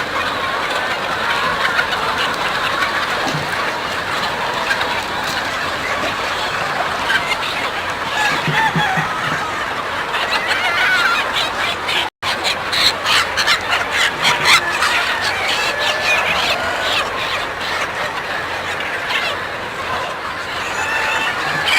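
A flock of kampung (Indonesian native) chickens clucking and calling, many voices overlapping without pause, with a momentary dropout about halfway through.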